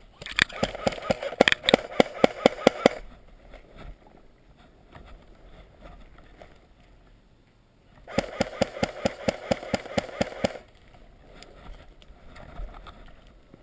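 Airsoft automatic electric gun firing two long full-auto bursts, rapid even clicks over the whir of its gearbox: the first lasts about three seconds, the second starts about eight seconds in and lasts about two and a half seconds.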